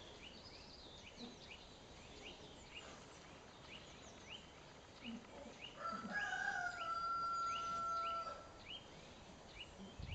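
A rooster crowing, ending in one long, level held note about six seconds in, over a steady series of short high chirps at about three a second.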